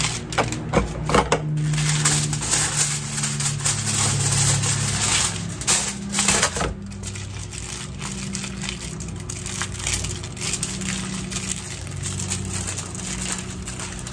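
Aluminium foil crinkling and crumpling as it is torn off the roll and folded around fish, in irregular bursts of crackling, busiest in the first second or two and again about six seconds in. A low drone runs underneath.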